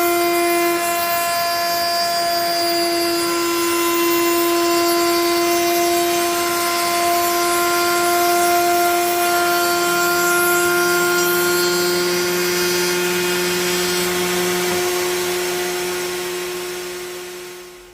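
Electric router running steadily at high speed with a constant high whine, most likely cutting a chamfer along a board's edge; the sound fades out near the end.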